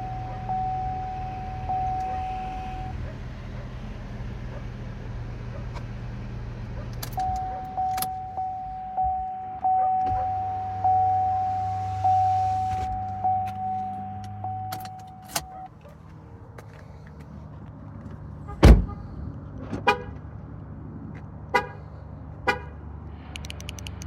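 The 2016 Buick Encore's warning chime dings steadily and repeatedly over the low hum of the engine running. Near the end a door shuts with a single loud thunk, followed by three short horn chirps from the car. These are the checks of a newly programmed key starting the car and working the remote.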